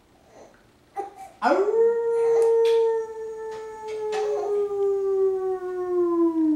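A man imitating a wolf howl: one long call that swoops up about a second and a half in, holds for about five seconds, and sinks slowly in pitch near the end.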